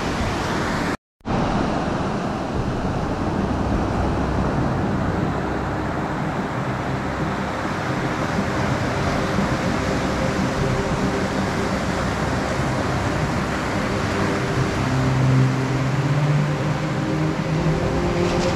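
Ocean surf washing steadily onto the beach, with a brief cut to silence about a second in.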